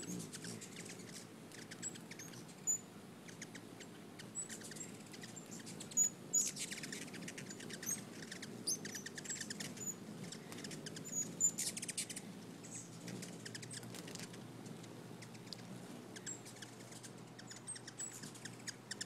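Hummingbirds at a feeder giving short, high chip notes, with two bursts of rapid twittering chatter about six and a half and twelve seconds in.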